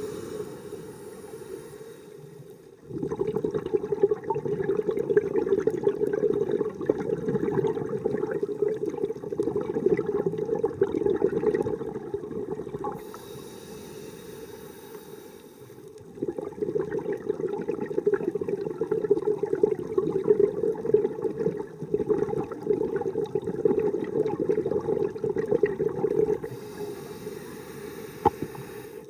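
A diver breathing through a scuba regulator underwater: a short hissing inhale, then a long bubbling exhale of about ten seconds. The cycle repeats twice, with another inhale near the end.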